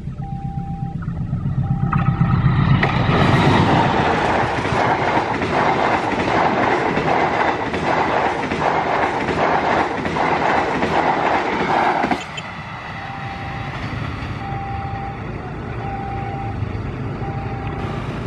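Passenger train, the Sawunggalih, hauled by a diesel locomotive, rumbling up and passing at speed. Its coach wheels clatter over the rail joints in an even rhythm, about one every three-quarters of a second, and the noise drops off suddenly as the last coach goes by. A level-crossing warning bell beeps in a regular on-off pattern at the start and again after the train has passed.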